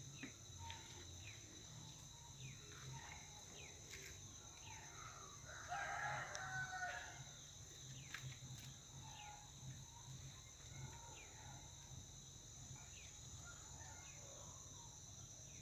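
Faint, steady chirring of crickets or similar insects, with scattered short chirps. A rooster crows once, about six seconds in, and this crow is the loudest sound.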